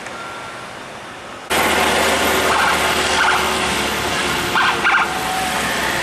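Road traffic noise, then about a second and a half in a much louder stretch begins abruptly: a tour bus running close by, with two short bursts of its multi-note telolet horn.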